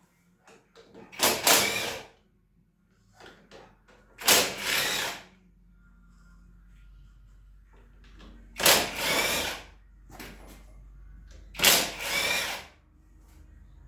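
Power drill running in four short bursts of about a second each, as fasteners are taken out while stripping down a 50 cc scooter.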